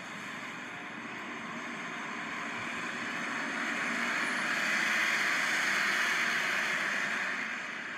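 A bus driving past. Its engine and tyre noise is a broad rush that swells to a peak about five to six seconds in, then fades.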